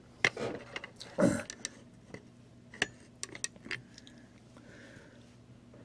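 Handling noise: a scattered run of sharp clicks and light knocks, a dozen or so over about four seconds, with two brief low sounds falling in pitch within the first second and a half.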